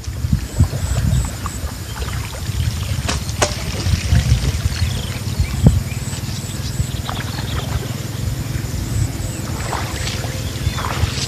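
Water sloshing and trickling, with scattered knocks and handling noise, as bamboo eel traps are handled and emptied.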